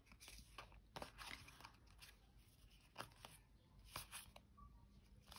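Faint handling of small Lenormand oracle cards, slid and shifted between the hands, with a few light taps and scrapes spaced about a second apart.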